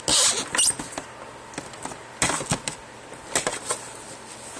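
Handling noise from the phone recording the video: a brief rustle at the start, then a few scattered knocks and taps.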